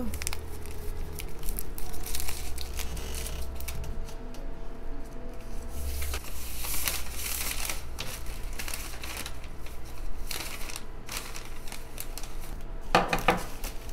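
Plastic packaging crinkling and rustling as nail files in plastic sleeves and a plastic mailer bag are handled, with a louder burst of crinkling about a second before the end.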